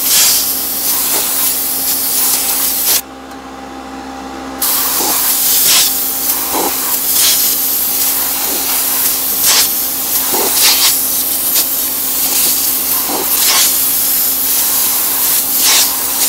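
Steady spray hissing as a dirty furnace squirrel-cage blower wheel is sprayed clean between its blades. The spray cuts out for about a second and a half around three seconds in, and short louder swishes come every second or so as the nozzle moves from blade to blade.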